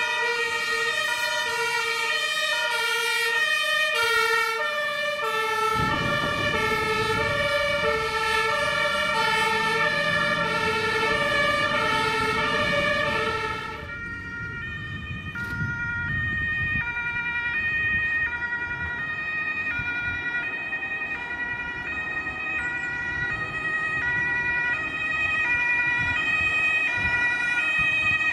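Fire engines' two-tone sirens sounding in alternating high-low notes, two sirens overlapping at first, with a deep diesel engine rumble joining about six seconds in as a truck passes. About halfway through the sound drops, and a single two-tone siren from an approaching fire engine grows louder.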